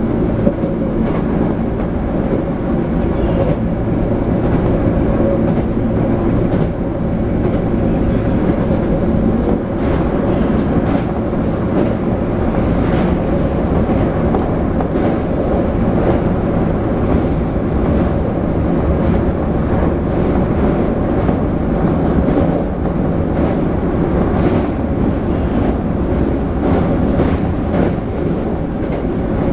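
Toei 5300 series train running between stations, heard inside the passenger car: a steady rumble of wheels on rail with occasional faint clacks.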